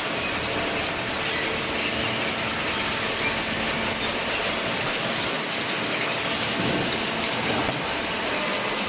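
Industrial cardboard baler running: a steady, dense mechanical noise with faint clatter.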